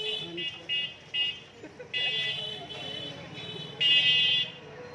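Vehicle horn honking repeatedly: four short toots in the first second or so, then longer blasts about two seconds in and near the end, the last one the loudest.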